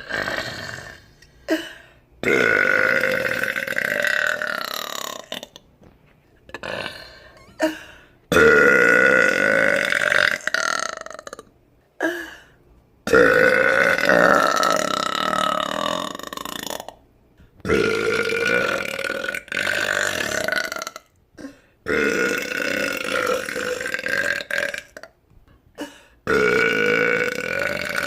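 A woman's long, drawn-out belches, one after another: about seven in a row, most lasting two to four seconds, with short breaks between them. Each holds a fairly steady pitch, and some drop at the end.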